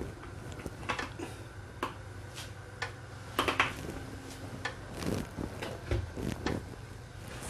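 Pan of cooking oil heating on a gas stove: a few scattered light ticks and clicks over a low steady hum, with the strongest clicks a little after the middle and near the end.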